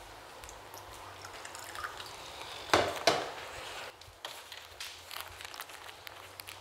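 Soft movement sounds in a quiet room: barefoot steps on a tile floor and light handling noises, with two louder knocks close together about three seconds in.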